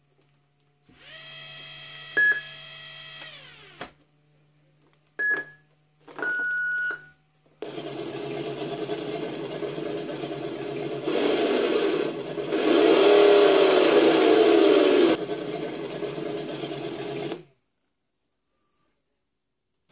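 A G.T.Power RC sound module plays through its small speaker: short electronic beeps during controller calibration, and a simulated motor sound that starts up, runs and revs louder in two surges as the transmitter throttle is worked. It cuts off a couple of seconds before the end.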